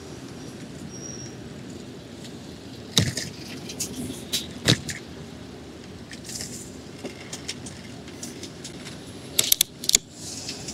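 Steady city street and traffic hum heard from a moving bicycle, with sharp clicks and rattles from the bike jolting over the paving: one about three seconds in, one near four and a half seconds, and a quick cluster near the end.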